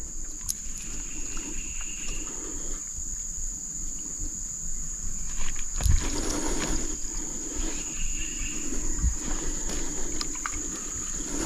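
Steady, high-pitched drone of insects, with a second fainter insect trill coming and going twice, and a few soft low thumps.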